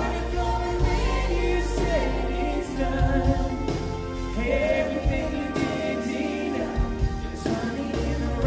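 Live contemporary worship band playing: vocalists singing over strummed acoustic guitar, electric guitar, bass and drums, with regular drum and cymbal hits.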